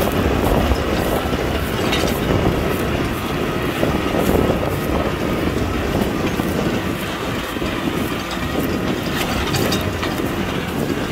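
Kubota tractor's diesel engine running steadily while plowing, with scattered clanks and rattles over the engine noise.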